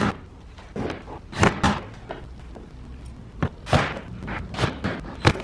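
Irregular wooden knocks and thumps, about ten in all, as plywood bed parts and a cordless drill are handled and set down on a plywood panel; the sharpest come at the start, around a second and a half in, and near the end.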